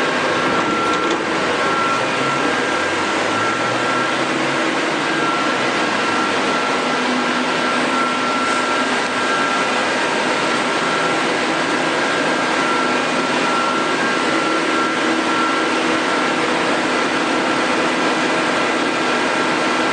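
Amera Seiki T415/1500 CNC lathe running behind its closed enclosure door: a steady, loud whir and hiss with a constant whine, and a low tone that rises about three seconds in.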